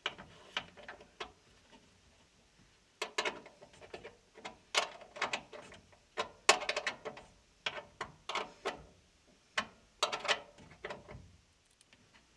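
Small open-end wrench clicking and scraping on a bolt-head screw as it is tightened down against the dryer's sheet-metal duct, in irregular bursts of sharp metallic ticks.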